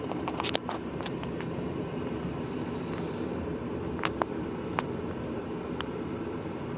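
A vehicle driving slowly, a steady low rumble of engine and road noise, with a few scattered sharp clicks and knocks.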